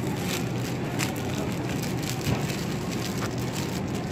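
Thin plastic produce bag crinkling and rustling as vegetables are put into it by hand, over a steady low background hum.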